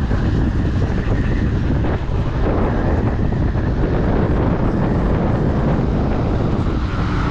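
Wind rushing over the microphone of a camera on a moving KTM Duke 200, heavy and steady, with the bike's single-cylinder engine running beneath it.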